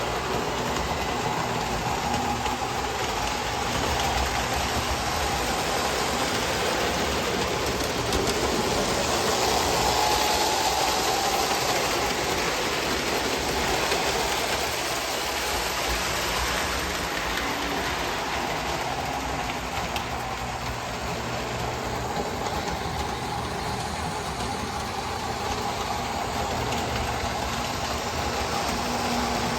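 Lionel postwar O-gauge toy train running around a three-rail layout: a steady whir of the locomotive's electric motor and wheels rolling on the track, growing a little louder around the middle as it comes closer.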